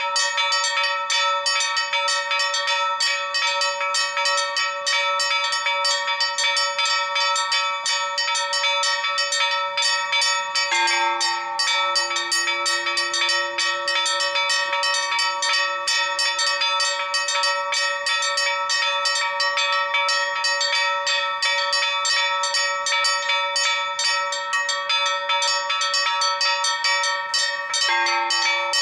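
Four church bells rung together in a rapid, continuous Maltese festa peal, the peal rung to call people to the feast-day High Mass. A deeper bell tone sounds from about eleven seconds in for several seconds, and again near the end.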